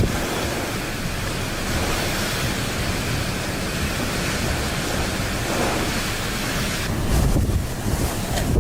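Strong storm wind rushing and buffeting the microphone, a steady roar of noise with a heavier gust about seven seconds in.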